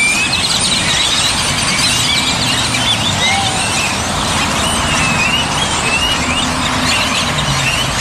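A huge flock of birds gathered on power lines and trees, calling all at once in a dense, continuous chorus of short squeaky whistles and chatter, with steady road traffic underneath.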